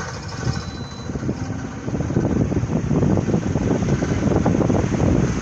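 Rough rumbling wind noise buffeting a phone's microphone, growing louder about two seconds in, with a low hum fading out in the first second.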